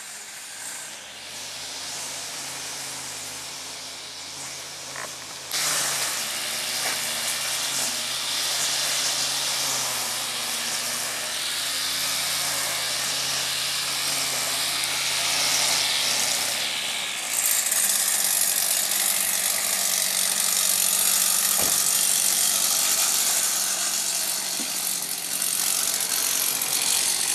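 A small engine of garden machinery running steadily under a loud hiss, which gets louder suddenly about five seconds in and again about halfway through.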